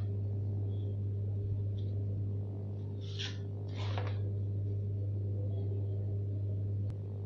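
A steady low hum, with two brief papery rustles about three and four seconds in as a papercraft card holder is opened and a card is drawn out.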